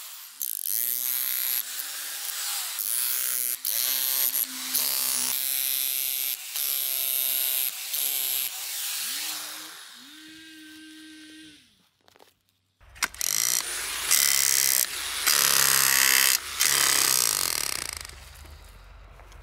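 Homemade tool made from an electric jackhammer fitted with a shovel blade, its motor run in repeated short bursts, pitch rising and falling as it speeds up and slows. It breaks off briefly about twelve seconds in, then runs louder.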